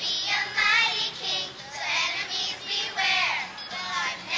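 A group of girls singing together.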